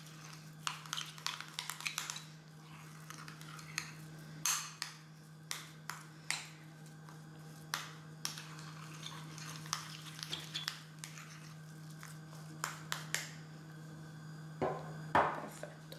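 A teaspoon clinking and scraping against a small glass bowl while stirring a thick mashed egg-yolk filling, in light, irregular taps, over a steady low hum. Near the end comes a slightly louder pair of knocks.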